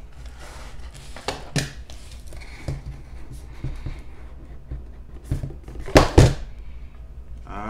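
Cardboard microphone box handled and opened: scattered knocks and scraping, with two loud thumps about six seconds in as the lid comes off.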